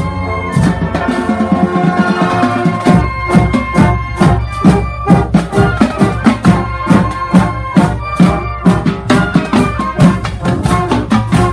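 High school marching band playing: sousaphones, trombones, saxophones, trumpets and flutes over drums keeping a steady beat, the drums coming through more strongly about three seconds in.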